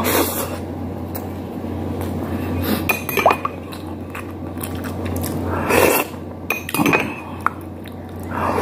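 Close-up eating sounds: a mouthful of rice, taken by hand, being chewed, with a few sharp clinks of plates or cutlery over a steady low hum.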